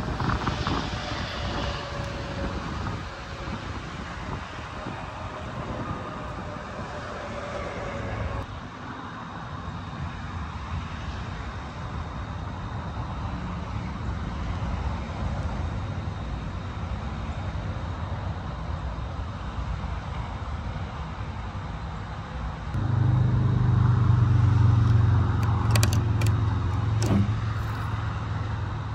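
Road-vehicle engine and traffic noise over a steady rushing background, with a slow falling tone in the first few seconds; a louder, low, steady engine drone sets in about three-quarters of the way through and eases off near the end.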